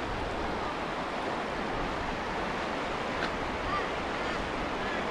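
Steady rushing of a fast-flowing, flood-swollen river, with a couple of faint short chirps near the middle.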